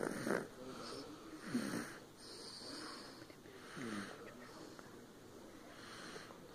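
A person snoring in sleep: slow breaths about every two seconds, some with a low rattling snore, the loudest at the very start and the later ones softer.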